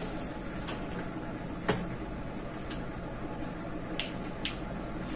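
Steady room hiss with a faint high whine, broken by a few small clicks and knocks, the sharpest about a second and a half in, typical of a teacher handling things at a whiteboard.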